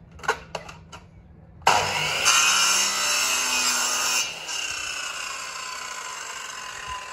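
Electric mitre saw starting up and cutting wood for about two and a half seconds, then the motor winding down with a slowly falling whine; a few light clicks come just before it starts. The blade is blunt and buckled.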